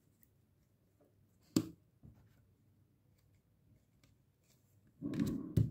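Tarot cards being handled during a shuffle and draw: one sharp snap about a second and a half in, a faint tick just after, then a short rustle of cards near the end.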